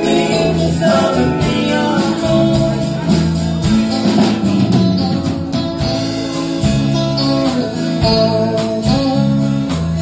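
Live country band playing a passage of a ballad with electric and acoustic guitars, bass and drums, with no lead vocal line.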